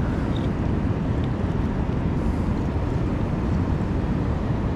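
Steady low rumble of wind buffeting the camera's microphone, with no clear events in it.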